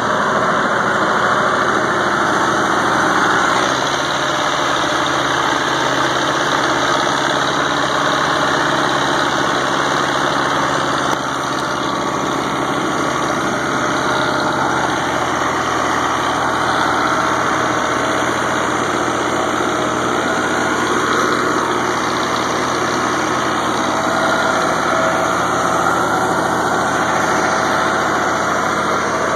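Fiat 115-90 farm tractor's diesel engine and a trailed Dewulf carrot harvester running steadily at work, the engine noise mixed with the harvester's lifting and conveying machinery.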